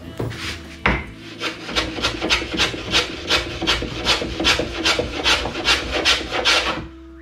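Hand rasp filing a wooden workpiece held in a bench vise, in quick regular strokes about three a second, to fair out a bump in a tiller's curve. There is a single sharp knock about a second in, and the strokes stop abruptly near the end.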